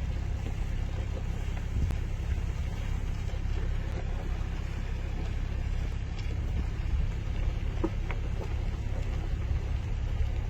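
Car engine running with a steady low rumble, heard from inside the car.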